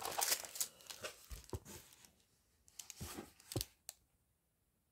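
Clear plastic protective film on an adhesive diamond painting canvas crinkling as it is lifted and handled: rustling for about two seconds, then a few short crackles, then quiet.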